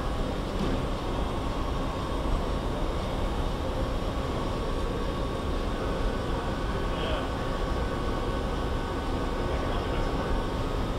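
Steady low drone of a large machine shop hall, the hum of ventilation and machinery, with a few faint steady hum tones over it.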